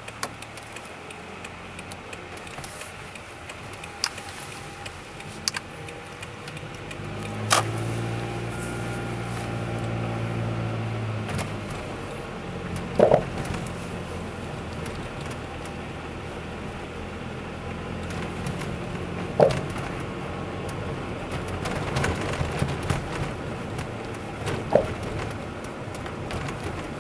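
Sharp knocks every few seconds from an RS-R Best-i coilover on a Toyota Alphard Hybrid, over a steady low vehicle rumble; the loudest knock comes about seven seconds in, followed by a low drone for a few seconds. The knocking comes from a loose upper top nut on the coilover.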